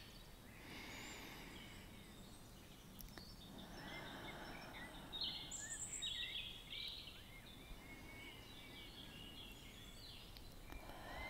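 Faint nature ambience: a soft rushing haze that swells and fades, with scattered bird chirps, most of them around the middle.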